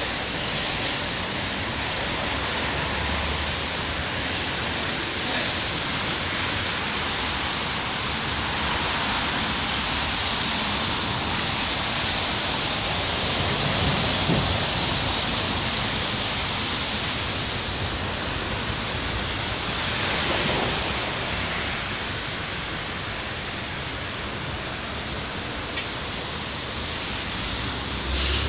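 Steady hiss of city traffic on rain-wet roads, swelling a little as vehicles pass about halfway through and again later.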